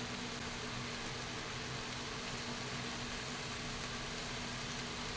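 Chicken pieces frying in oil in a cooking pot, a steady sizzling hiss over a low steady hum.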